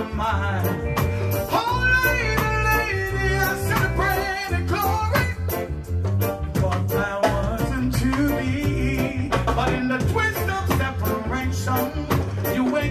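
A man singing a slow reggae-style ballad into a microphone, over electric bass and a steady drum beat.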